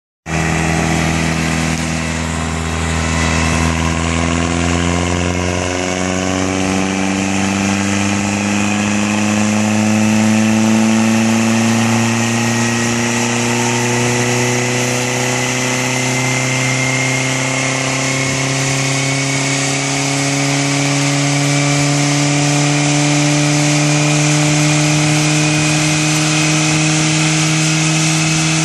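An Audi A4 sedan's engine runs steadily under load on a chassis dynamometer, its pitch rising slowly and evenly. A low hum underneath stops about six seconds in.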